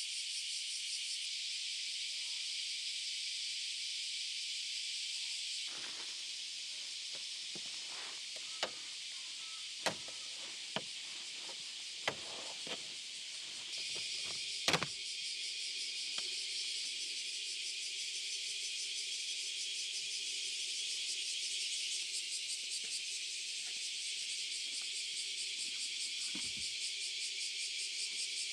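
Steady high chirring of insects with a fast pulse. A string of sharp clicks and knocks falls between about six and fifteen seconds in, the loudest near the middle.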